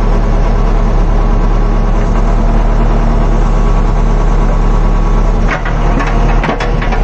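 JCB backhoe loader's diesel engine running steadily, heard from inside the cab while the hydraulic backhoe arm is worked. About five and a half seconds in, the engine note dips briefly and a few sharp knocks and rattles follow.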